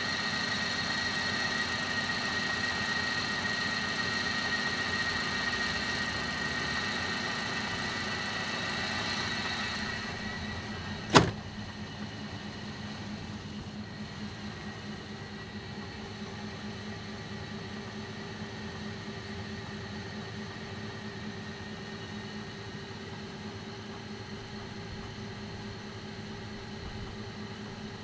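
MAN Lion's City G bus's compressed-natural-gas engine running, at first with a steady high whine over it. About ten seconds in the whine fades and the level drops. A single sharp click follows, the loudest sound, then the engine idles steadily and lower.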